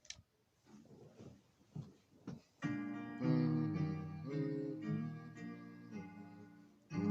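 Faint clicks and knocks, then guitar music starting about two and a half seconds in, played as a run of chords.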